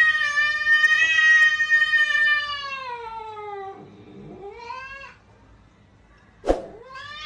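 Cat yowling: one long, wavering drawn-out call that sinks in pitch and fades, then a short rising-and-falling call. A sudden sharp knock comes about six and a half seconds in, just before another long yowl begins.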